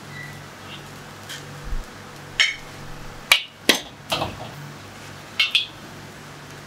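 A handful of sharp, irregular metal clanks and knocks from the wok and cooking utensils, some ringing briefly, over a steady low hum.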